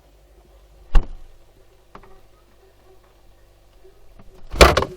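Fridge door shutting with a sharp thud about a second in, heard from inside the fridge, followed by a faint low hum and small ticks in the closed compartment, then a loud rushing burst near the end as the door is pulled open again.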